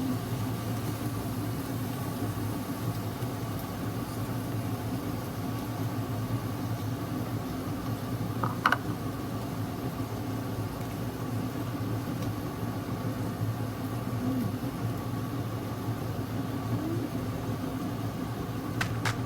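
Steady low mechanical hum, like a motor running, with one short sharp click a little less than halfway through.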